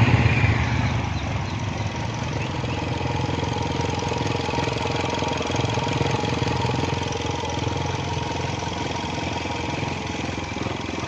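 Maruti Suzuki Swift VXi's 1.2-litre four-cylinder petrol engine idling, somewhat louder in the first second or two and then steady, with a fast ticking and a thin steady whine over the running. The owner puts the noise down to the tappets and to the alternator and AC pulleys after about 51,000 km.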